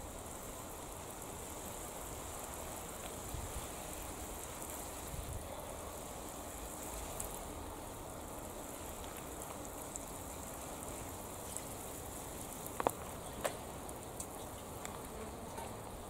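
Water sprinkling from a watering can's rose onto soil and leaves, a steady rain-like patter. Two short sharp clicks come near the end.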